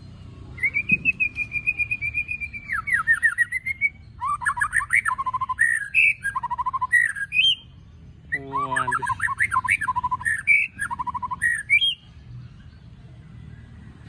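White-rumped shama (murai batu) singing two loud phrases of fast, varied whistled notes and trills, the first about seven seconds long and the second about four, with a short break between.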